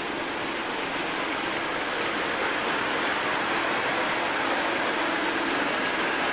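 British Rail Class 37 diesel locomotive passing close by with its train, engine running and wheels rumbling on the rails. The sound grows louder over the first couple of seconds as the locomotive draws level, then holds steady.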